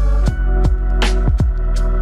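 Electronic background music with a deep bass and steady held tones under regular drum hits, each kick sliding down in pitch.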